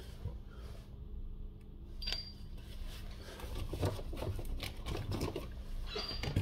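Faint handling noise: light clicks and scrapes that start about two seconds in and grow busier, over a steady low hum.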